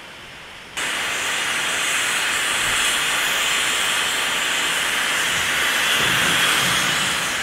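Steam locomotive venting steam: a loud, steady hiss that starts suddenly about a second in.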